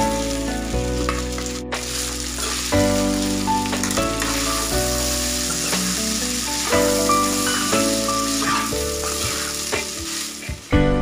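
Rice and tempering sizzling in a hot steel kadai as they are stirred and scraped with a steel spatula. Background instrumental music plays throughout.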